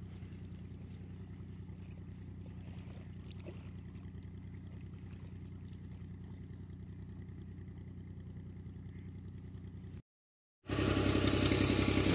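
Fiat 480 tractor's three-cylinder diesel engine running steadily to drive an irrigation water pump, a faint low hum from a distance. Near the end, after a brief cut to silence, it is suddenly much louder and close, with a rushing hiss of pumped water.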